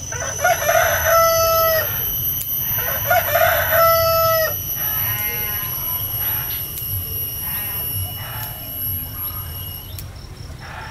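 A rooster crowing twice, each crow ending in a long held note, followed by several fainter, shorter calls. A few light clicks sound in between.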